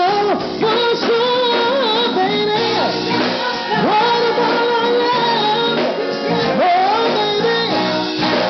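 A woman singing live with a band, holding long notes and sliding between pitches without clear words.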